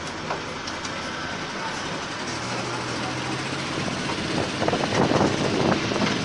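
Mini tourist train running along the street: steady engine and road noise, growing louder about two-thirds of the way through.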